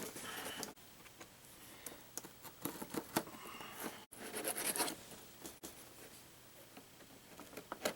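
A product box being handled and opened by hand: scattered scratches, scrapes and light taps of the packaging.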